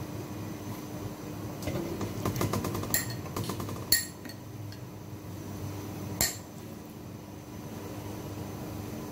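A spoon scraping and clinking in a bowl while scooping chopped parsley-garlic mixture. A quick run of small scrapes comes about two seconds in, sharp clinks follow near three and four seconds, the loudest at four, and one more comes about six seconds in, all over a steady low hum.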